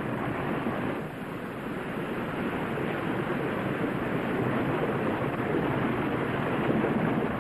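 Waterfall: a steady rushing of falling water that grows a little louder toward the end.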